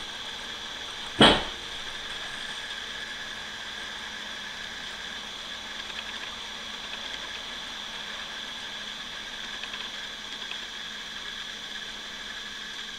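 Roco HO-scale Y8449 model locomotive running with a long train of wagons on its shelf track: a steady whine from its digitally controlled motor over the rolling of the wheels. One sharp knock comes about a second in.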